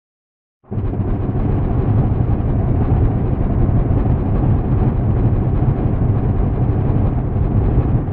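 Thunder: a loud, low rumble that starts abruptly under a second in and rolls on steadily for several seconds.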